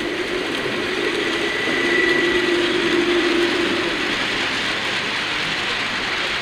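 Babbacombe Cliff Railway funicular car running on its rails: a steady mechanical rumble with a faint held whine, swelling a little about two to three seconds in.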